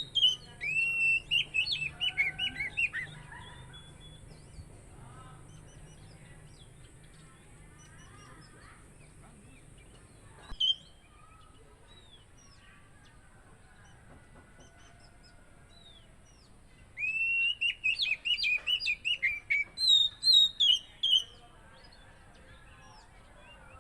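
Oriental magpie-robin (kacer) singing in rapid runs of loud, varied whistled notes: one burst at the start and another about seventeen seconds in, with a single short call around ten seconds. Fainter chirps of other birds fill the gaps.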